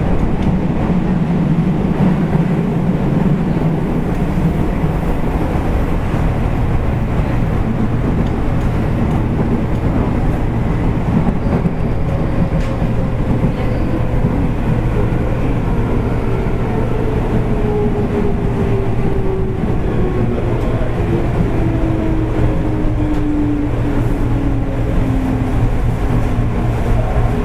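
Onboard running sound of a JR East 205 series electric commuter train, heard from the end of a car: a steady rumble of wheels on rail with a low hum. From about halfway through, a motor whine falls slowly in pitch as the train slows.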